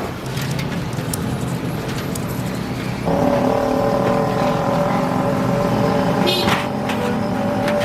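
A motor running steadily; about three seconds in a steady pitched hum sets in and holds, with a few sharp clicks near the end.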